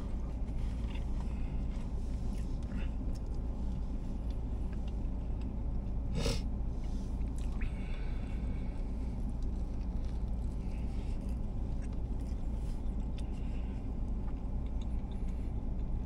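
A man chewing a steak biscuit, with soft mouth and handling noises and one sharper click about six seconds in, over a steady low rumble inside a parked car.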